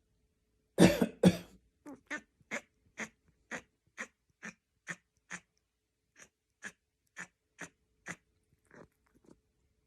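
Coughing: two loud coughs about a second in, then a long run of short, evenly spaced hacks about two a second that grow fainter toward the end.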